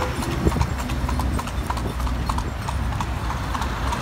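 Horse's hooves clip-clopping rhythmically on a paved street, over a steady low rumble.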